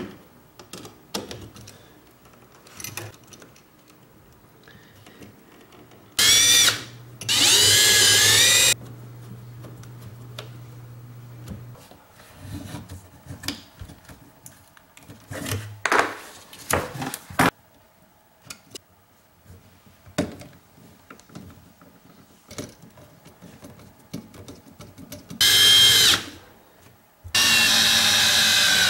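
Cordless drill-driver whirring in short runs as it drives an outlet's mounting screws into the electrical box: two runs about six to nine seconds in, and two more near the end. Between them come clicks and knocks of the wires and outlet being handled and pushed into the box.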